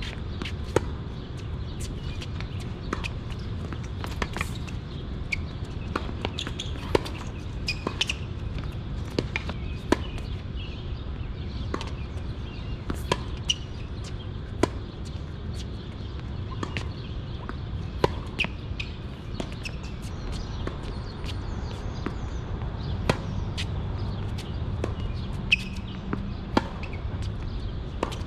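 Tennis balls being struck by rackets and bouncing on the court during play: sharp single pops about once every second or so, over a steady low background rumble.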